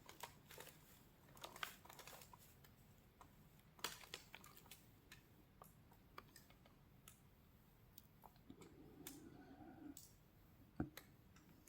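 Near silence: room tone with faint scattered clicks and light rustling.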